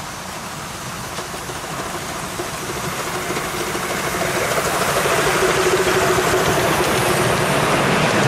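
Miniature steam locomotive hauling a passenger train, growing steadily louder as it approaches and passes close by, with the coaches rolling along the rails near the end.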